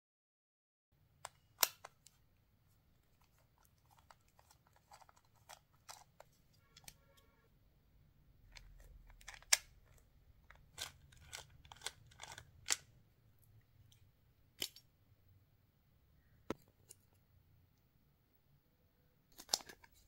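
Scattered sharp clicks and light knocks of a plastic emergency hammer being taken apart with a screwdriver, its plastic housing and steel hammer head clicking against each other in the hands. A brief squeak comes about seven seconds in.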